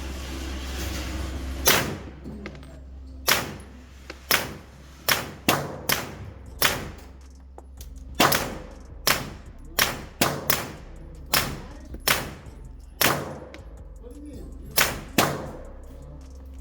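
Suppressed 9mm firearm firing a string of about seventeen shots in quick, irregular succession, each a sharp report that dies away fast, with a short pause near the middle.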